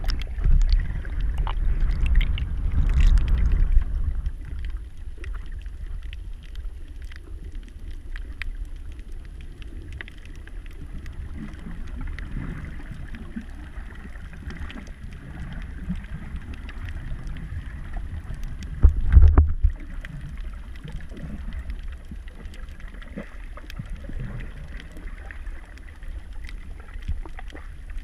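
Muffled underwater sound picked up by a camera in a waterproof housing: a low rumble of moving water with scattered faint clicks and crackles. It is louder in the first few seconds and surges briefly about nineteen seconds in.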